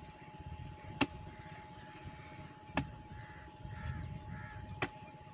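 A hand hoe chopping into soil three times, about two seconds apart, each a short sharp strike, as an earth channel bank is dug down.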